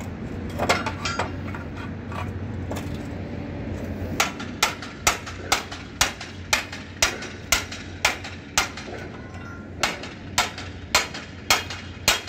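Hammer striking the metal frame of a road storm-drain grate with short, ringing blows: a few scattered strikes at first, then a steady run of about two blows a second from about four seconds in, briefly pausing near the nine-second mark.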